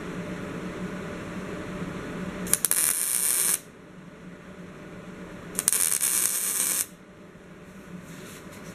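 Two short bursts of MIG welding, each about a second long, crackling and hissing as tack welds go onto the sheet-steel hood patch, over a steady low hum.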